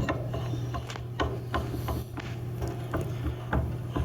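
Threaded metal back shell being turned by hand onto the SMR module of a cone penetrometer: irregular light clicks and scrapes of metal parts, over a steady low hum.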